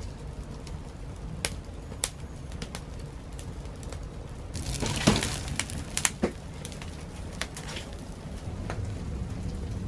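Wood fire of dry sticks and dead leaves crackling, with sharp separate pops over a steady low rumble. About halfway through it gives a brief louder rush as the dry leaves flare up, followed by a few more loud pops.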